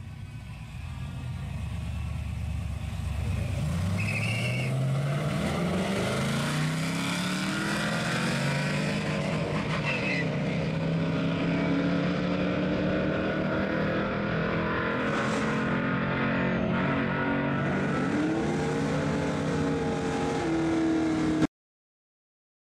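Drag race launch: a pickup truck and a sports coupe accelerating hard down the strip, their engines rising in pitch and dropping back at each gear change. The sound cuts off suddenly near the end.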